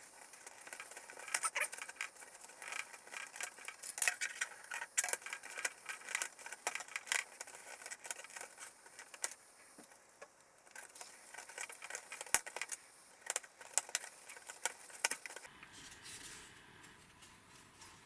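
Light clicks, taps and small rattles of thin wooden model-kit parts being handled, pressed out and fitted together, stopping about fifteen seconds in and leaving a faint hiss.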